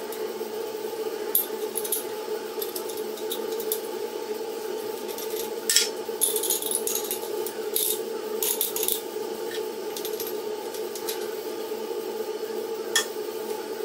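Sharp metallic clicks and clinks as a homemade steel bar clamp's sliding jaw and release lever are worked, a dozen or so scattered over several seconds, over a steady hum.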